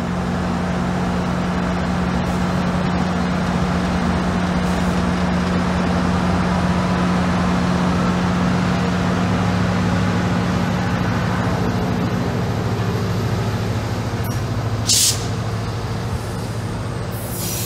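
GO Transit MP40PH-3C diesel locomotive's engine running as the train moves off slowly, a steady low drone. A brief sharp hiss of air comes near the end, and the wheels start to squeal just before it ends.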